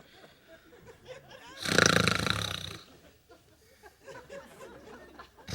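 A man snoring: one loud snore about a second and a half in, lasting about a second, with only faint room sound around it.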